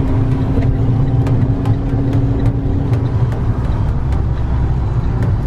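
Inside a car's cabin while driving on wet roads in heavy rain: steady low rumble of engine and tyres, with frequent sharp ticks and a steady hum that stops about three seconds in.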